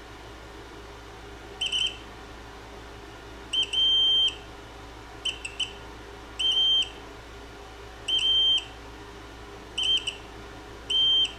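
Digital multimeter continuity beeper sounding in separate beeps, some brief and some held about half a second, as the probes touch the copper-plated impeller: each beep means the copper plating conducts electricity between the probe points.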